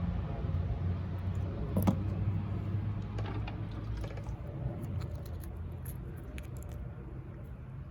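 Small clicks and taps of cut rock pieces being handled and turned over, with one sharper click about two seconds in, over a low steady background rumble.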